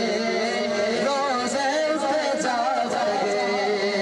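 Two men singing a naat through microphones and a PA system: a long held note runs under a wavering, ornamented melodic line that is strongest in the middle.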